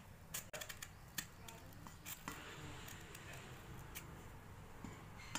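Kitchen knife slicing long pieces off a peeled raw mango: faint, scattered sharp clicks as the blade cuts through the firm flesh.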